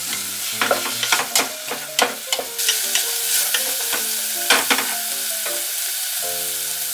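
Chopped kimchi sizzling as it is stir-fried in sesame oil in a pot, with a wooden spatula scraping and knocking against the pan bottom many times at an uneven pace.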